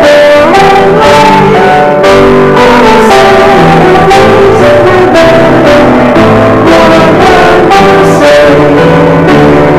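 A hymn played on the piano, its melody in held notes moving step by step over steady chords.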